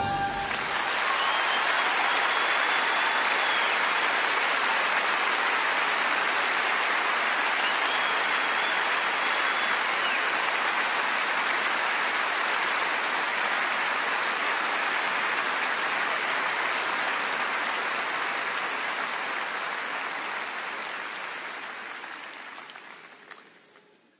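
Large arena audience applauding steadily, the applause fading out over the last few seconds.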